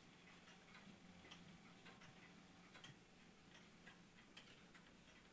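Faint, steady ticking of a wooden tall-case grandfather clock.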